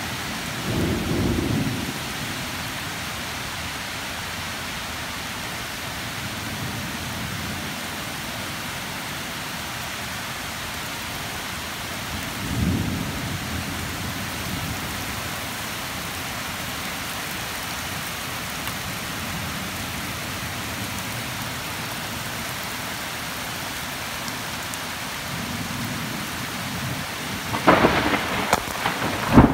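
Steady rain with thunder: a low rumble about a second in, another around twelve seconds in, and a louder, sharper crack of thunder near the end.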